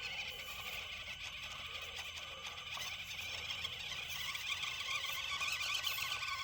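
Axial SCX24 Deadbolt micro crawler's small electric motor and gear drivetrain whining steadily as it crawls over rock, with a scratchy, grinding edge.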